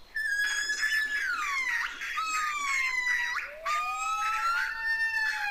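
Barbary macaques giving long, high whining calls, three in a row, each sliding down in pitch; near the end a second, lower call overlaps the last one.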